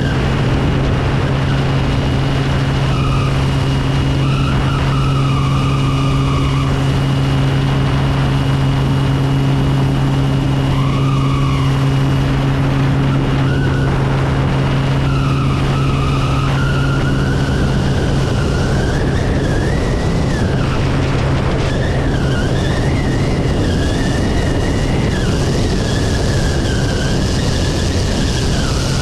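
Kodiak 100's Pratt & Whitney PT6A turboprop engine and propeller running in flight: a steady deep drone with a thin high turbine whine over heavy wind rush on the wing-mounted microphone. The deep drone eases somewhat a little past the middle.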